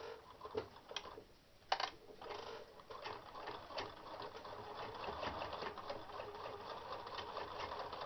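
Sewing machine stitching through layers of cotton fabric and batting: a few clicks in the first two seconds, then the machine runs steadily with a fast, even ticking.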